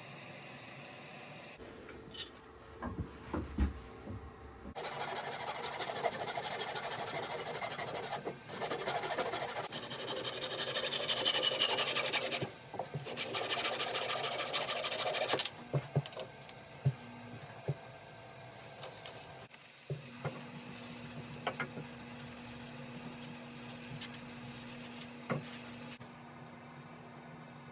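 Wood being rasped or abraded by hand: a long run of continuous scraping strokes starting about five seconds in and lasting about ten seconds, followed by scattered light knocks and taps.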